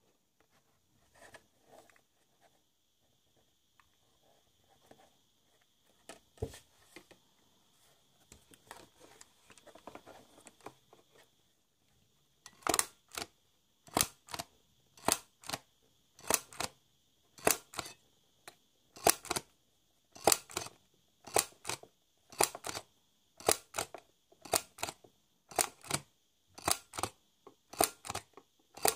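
Handheld pocket sewing machine, squeezed like a stapler, stitching through cardboard: first soft handling and rustling, then from about halfway a steady run of sharp double clicks, roughly one stitch a second.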